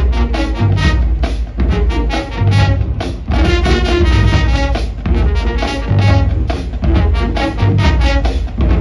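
Marching band playing: a full brass section, sousaphones and horns, over a drumline of bass drums and snares keeping a steady, heavy beat.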